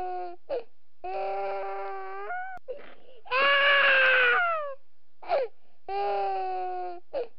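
A baby crying: long, steady wails with short gasping breaths between them, and one louder wail near the middle that falls in pitch at its end.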